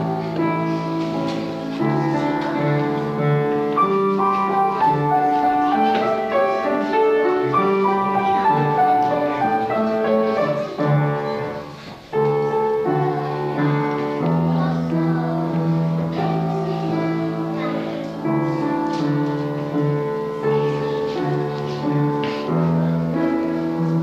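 Piano music playing, with a brief break about halfway through.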